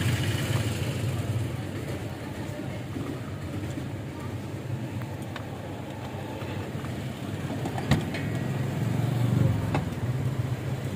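Steady low rumble of motor traffic and an idling engine, with a single sharp click about eight seconds in.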